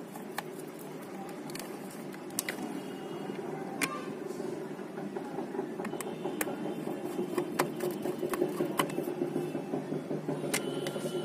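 Scattered light clicks and taps of hands closing the plastic casing of an aquarium air pump and fitting its nut, over a steady low hum that grows a little louder.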